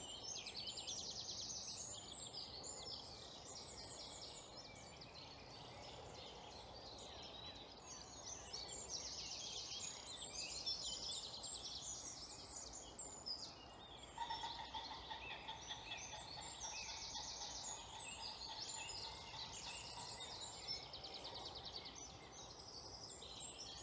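Dawn chorus of many woodland songbirds singing at once, overlapping trills and short phrases, faint as if from some distance. A faint steady tone joins in about halfway through.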